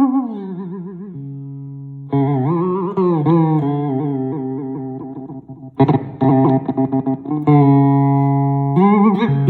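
Handmade amplified 'bender' string instrument with a pickup made from a nail, copper and a magnet, played in sliding, wavering notes that bend up and down in pitch, with a few notes held steady.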